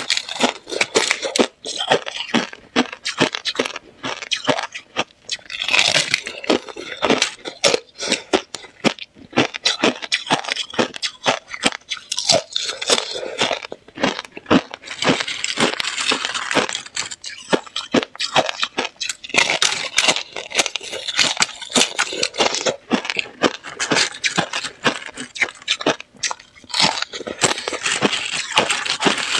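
Thin sheets of clear ice being bitten and chewed: a dense, continuous run of sharp crunches and crackles.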